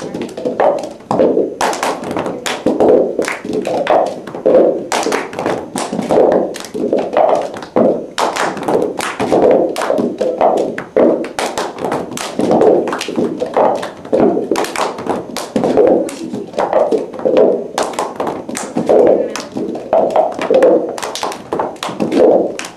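Plastic cups knocked, tapped and set down on a carpeted floor together with hand slaps and claps, keeping a steady rhythm of dull thuds and sharp taps.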